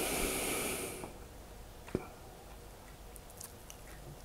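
A person's breath, a short hiss lasting about a second, then faint isolated clicks like mouth or lip noises close to the microphone.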